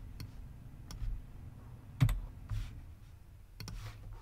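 Computer keyboard and mouse clicks: a few separate clicks, the loudest about two seconds in, and a quick run of keystrokes near the end, over a steady low hum.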